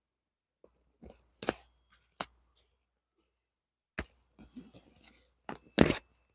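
Sharp clacks and snaps of hand work on a vinyl seat cover, several spaced a second or two apart, the loudest near the end, with soft rustling of the material between them.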